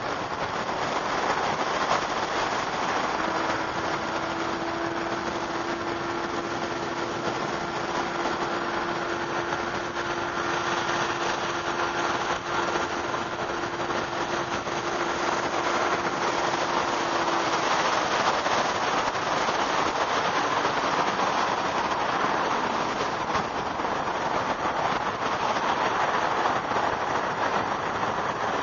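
Steady hiss of heavy rain in a thunderstorm. A steady humming tone comes in about three seconds in and stops a little past halfway.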